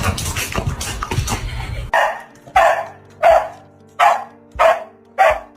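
Dog barking in a steady run, about six barks evenly spaced a little over a second and a half apart, starting about two seconds in after a stretch of louder, dense noise.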